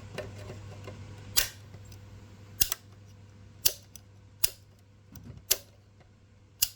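Sharp mechanical clicks, six in all and about one a second, from the table fan's speed-switch mechanism being worked through its positions after fresh lithium grease.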